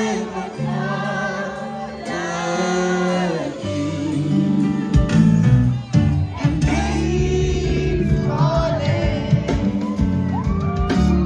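Music: a song with singing over a steady beat, the bass growing heavier about five seconds in.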